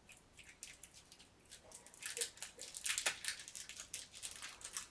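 Crinkly rustling of packaging being handled and opened, with a few small clicks and taps, busiest in the middle.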